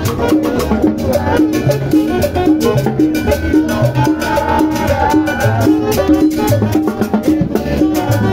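Salsa-style Latin dance music with a steady beat: bass notes, drums and percussion under a repeating figure of short notes.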